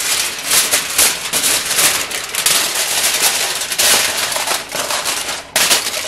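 Sheet of aluminium foil crinkling as it is spread, pressed and tucked over a roasted turkey in a metal roasting pan: a dense run of rapid crackles, with a short lull about five and a half seconds in.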